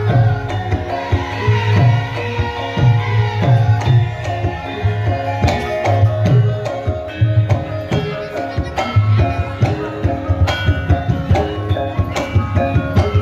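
Javanese gamelan accompaniment for lengger dance: kendang hand drums play rhythmic strokes under ringing, pitched metallophone and gong tones.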